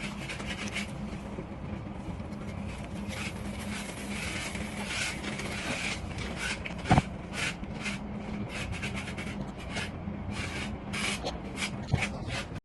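A hand tool rubbing and scraping over a mortar surface in short repeated strokes, with a sharp knock about seven seconds in and a steady low hum underneath.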